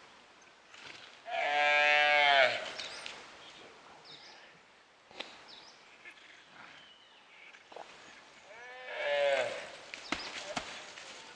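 A gaur bleats twice, two long drawn-out calls a little over a second each: one about a second in, one near the end. The calls come while a pack of dhole attacks its calf.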